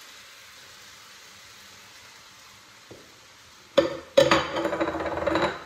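Wet, drained matzo sizzling steadily in a hot skillet oiled with avocado oil. About four seconds in, a loud knock and rustling close to the microphone cover it for a second and a half.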